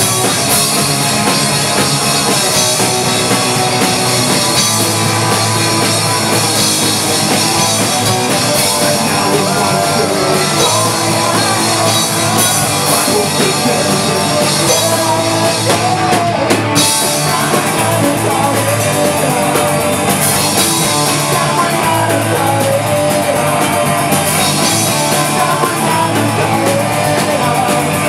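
Live pop-punk band playing a song: electric guitar, drum kit with cymbals and sung lead vocals.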